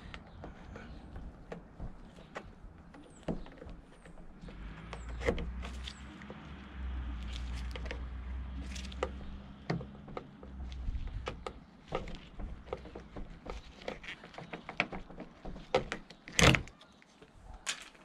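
Plastic trim tool prying the end cap off a BMW E53 X5's outer door handle: scattered small clicks and taps of plastic against the chrome handle, with one louder snap near the end as the cap comes free.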